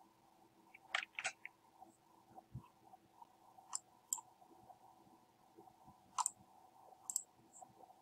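Computer keyboard keys and mouse buttons clicking: a quick cluster of about four clicks about a second in, then single clicks every second or so. A faint steady hum lies underneath.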